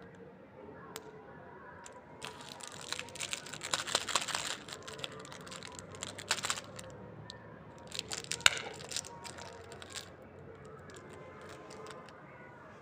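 Candy wrappers crinkling and rustling in two bursts of handling, with a few sharp clicks, as chocolate lollipops are unwrapped.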